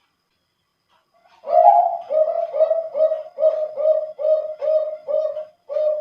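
Male zebra dove (perkutut, Bangkok contest line) singing its cooing song. About a second and a half in, a longer opening coo leads into a quick, even run of short coos, about two and a half a second.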